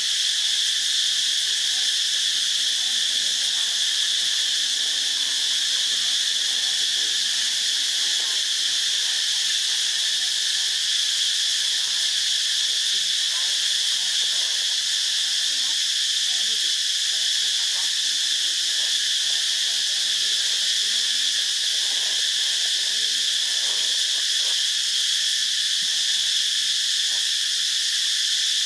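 Steady, unbroken high-pitched chorus of insects droning, with faint scattered lower sounds underneath.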